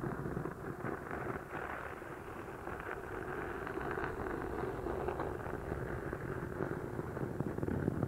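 Fingernails scratching on the cloth cover of a hardcover book held right against a binaural microphone: a close, dense, steady crackling.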